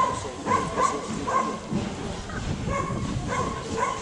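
A dog barking repeatedly in short, high yaps.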